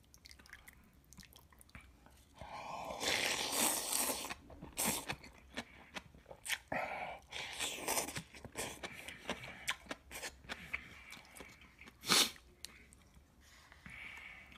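A person eating spicy ramen noodles and bean sprouts close to the microphone: a long, loud slurp a little over two seconds in, then wet chewing and crunching with short smacks, and one sharp, loud burst a little after twelve seconds.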